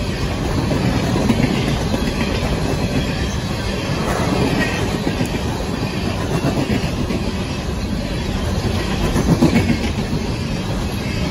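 Open-top coal hopper cars of a CSX freight train rolling past close by: steel wheels running on the rails in a steady rumble and clatter.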